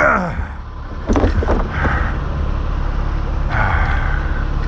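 Echo CS6700 two-stroke chainsaw engine running steadily with a low, even hum.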